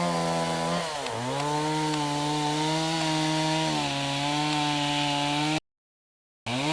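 Chainsaw running at high revs, with the revs dropping and climbing back about a second in and sagging slightly near four seconds. The sound cuts out abruptly for almost a second near the end.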